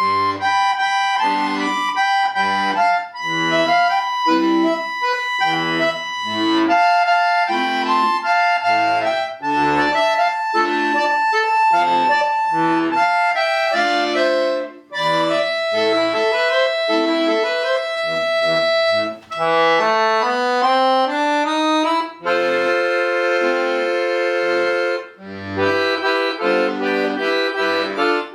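Solo accordion playing a melody over an alternating bass-note-and-chord accompaniment. About twenty seconds in, a quick rising run leads into a held chord, and the music moves on again a few seconds later.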